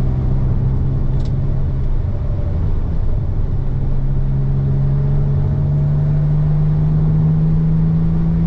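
Nissan 300ZX Twin Turbo's 3.0-litre twin-turbo V6 heard from inside the cabin while driving, over steady road noise. The engine note fades about two seconds in, then comes back and rises slowly in pitch as the car gathers speed.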